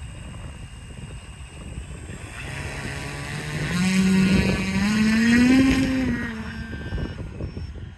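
Electric motor and propeller of a homebuilt foam FPV airplane, loaded with about 2.75 kg of extra weight, throttled up for a takeoff run on grass. Its buzz climbs in pitch in steps from about two seconds in and is loudest around six seconds, then drops in pitch and fades as the plane runs away. Wind rumbles on the microphone throughout.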